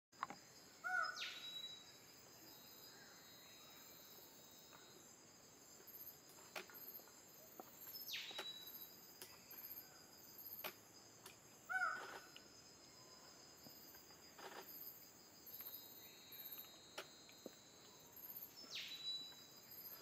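Steady high insect drone with faster pulsing insect chirps above it, and a few short bird calls. The loudest are clipped, hooked notes about a second in and again near twelve seconds, and thin falling whistles come near eight and nineteen seconds.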